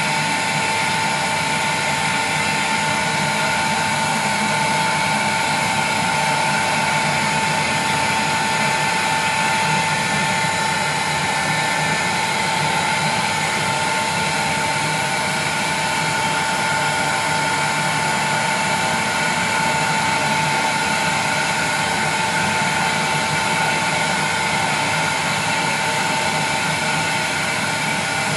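1200-watt electric heat gun running steadily, a constant rush of blown air with a steady whine from its fan, as it heats the bonded safety lens of a CRT to loosen the bond.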